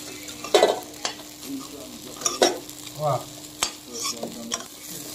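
Crab pieces sizzling in hot oil in an iron kadai while a metal spatula stirs and scoops them, scraping and knocking sharply against the pan several times.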